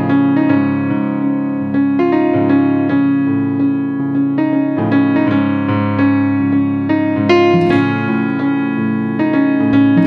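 Background music played on a keyboard with a piano sound, a steady flow of notes over held low tones.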